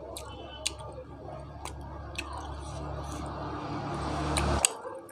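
Close-miked chewing of boiled chicken: wet, squishy mouth sounds with a few light clicks, growing louder and then stopping abruptly about four and a half seconds in.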